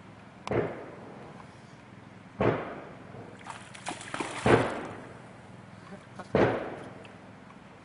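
Water splashing in four sudden bouts, each quick to fade; the third is a quick run of several splashes.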